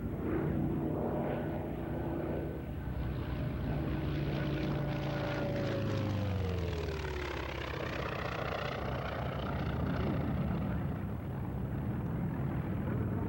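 World War II piston-engined propeller warplane flying past, its engine drone falling in pitch as it passes about six to seven seconds in.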